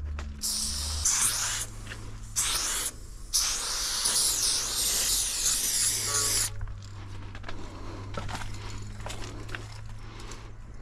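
Aerosol spray-paint can hissing in several bursts as paint goes on, the last and longest lasting about three seconds and stopping a little past the middle; a steady low hum runs underneath.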